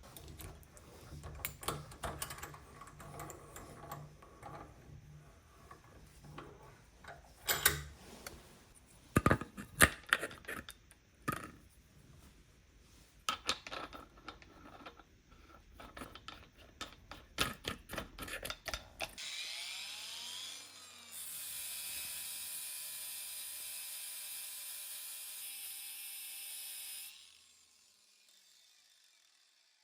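Scattered mechanical clicks, rattles and knocks of hand work with metal parts. After about 19 seconds a small power tool spins up, runs steadily for about eight seconds and stops.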